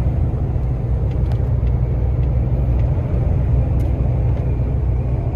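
A truck's diesel engine drones steadily with road noise, heard from inside the cab while driving, with a few faint ticks.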